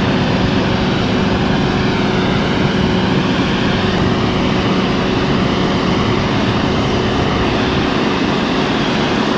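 Old 1937 circular saw running, a steady mechanical drone with a constant hum as the blade spins.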